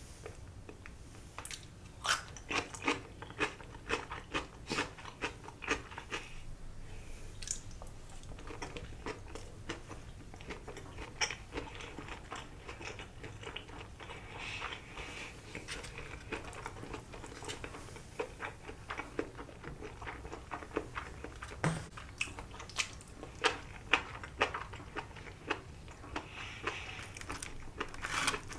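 Close-up sounds of a person chewing sushi with their mouth: irregular wet chewing with sharp crisp crunches, coming in flurries.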